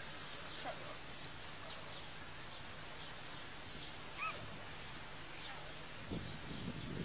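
Garden ambience with small birds chirping in short high notes, and one clearer call about four seconds in. A few low thumps come near the end.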